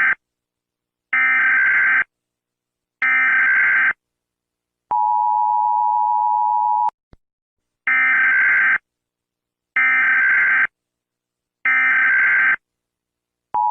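Emergency Alert System signal: three short, buzzy digital data bursts of the SAME header, then a steady two-second alert tone about five seconds in. Three more identical bursts follow, and the steady tone starts again near the end.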